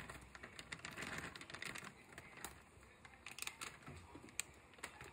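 Peas and diced carrots pouring from a plastic bag into a pan of pasta: a faint, irregular patter of small clicks and taps.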